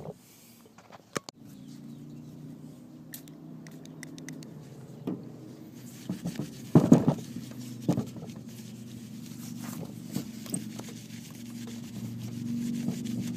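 A cloth wiping and rubbing over the plastic top of a sealed lead-acid battery, with scattered light knocks and scrapes; the loudest knock comes about seven seconds in. A steady low hum runs underneath from about a second in.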